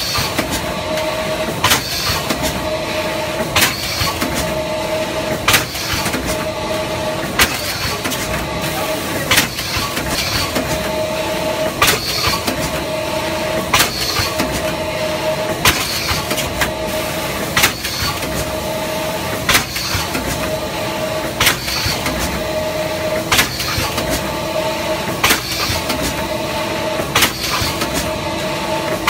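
LX3122 in-mold form-and-trim thermoforming machine running at 30 cycles a minute on 0.2 mm PET trays. A sharp clack comes about every two seconds as the press strokes, over a steady mechanical hum with a short whine in each cycle.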